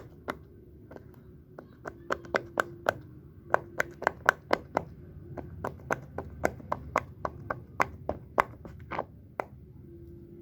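Sharp clicks and taps from a fidget toy worked by hand, coming in quick runs of several a second with short pauses between them.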